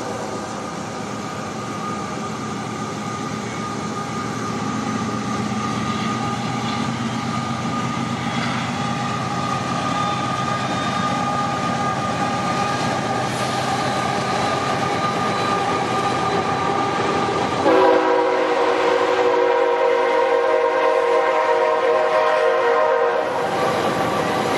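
CSX train rumbling past on the rails. About 18 s in, its locomotive air horn sounds one loud, sustained blast of several tones for about five seconds.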